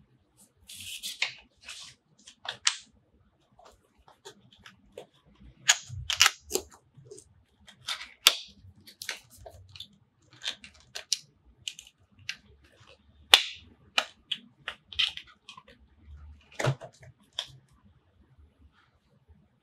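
Small cardboard retail box being handled and opened by hand: a series of sharp clicks and snaps from the flaps and inner card, with a brief papery rustle about a second in.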